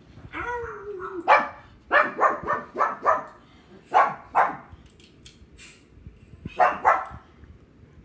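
Pug barking in sharp bursts: a short whining cry about half a second in, then a quick run of about five barks, two more a second later, and a last pair near the end.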